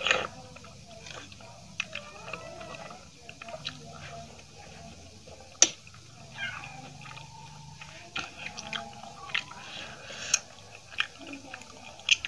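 Close-up chewing and wet mouth smacks of someone eating aloo paratha with yogurt and curry, with many short sharp clicks scattered through; the loudest comes about halfway.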